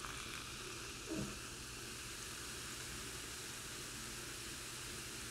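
Steady faint background hiss of room tone, with one brief soft low sound about a second in.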